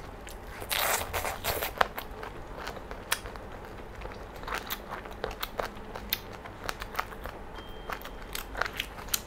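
Close-miked chewing of crunchy chicken feet in sauce: a string of crunches and wet crackles, densest about a second in.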